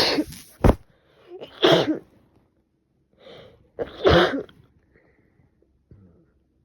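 A woman sneezing from a cold: three loud sneezes about two seconds apart, with smaller catches of breath between them.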